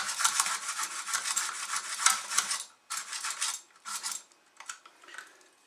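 Hacksaw blade in a handheld blade holder sawing with rapid short strokes through the wall of a PVC pipe glued inside an ABS fitting, cutting the pipe to the depth of the socket so it can be broken out. The strokes run on steadily for about two and a half seconds, then come as a few separate strokes and trail off near the end.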